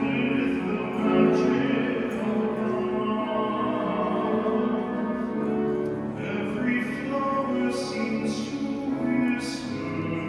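Music with singing: a slow vocal piece in long held notes.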